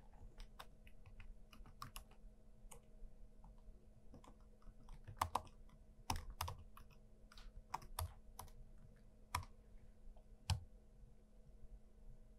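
Computer keyboard typing: faint, irregular key clicks as a username and password are entered, over a faint steady low hum.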